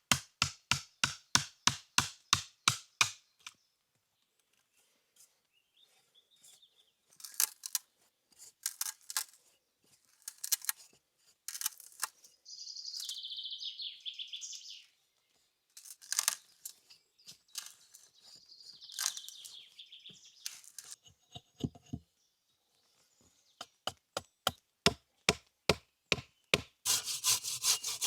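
Wood being worked by hand: a run of quick, rhythmic strokes, then scattered clicks, scrapes and two longer rasping rubs, with another quick run of strokes near the end.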